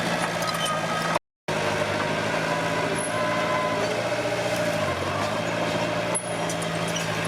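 Komatsu D21P bulldozer's diesel engine running steadily. The sound cuts out completely for a moment about a second in, then picks up again.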